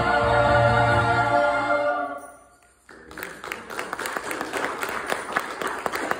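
Choir singing a held final chord that fades out about two seconds in, followed about a second later by audience applause, a dense patter of many hand claps.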